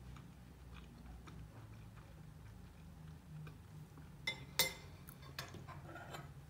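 Metal spoon clinking and scraping against a ceramic bowl of oat porridge, with two sharp clinks a little past four seconds in and a few lighter ones after. Soft chewing and mouth sounds before that.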